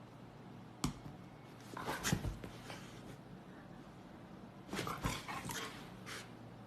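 A puppy making a few short, soft sounds, about two seconds in and again several times between five and six seconds in, with a sharp click a little under a second in.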